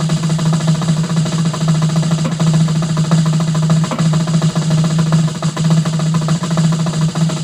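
Snare drum played in a long, loud, open roll, dense and unbroken, meant to sound "open and beefy" and held in time with the arms.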